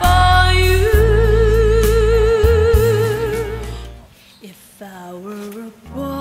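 Background pop song: a woman holds a long sung note with vibrato over a bass-heavy backing. The backing drops out about four seconds in to a quieter sung passage, then comes back near the end.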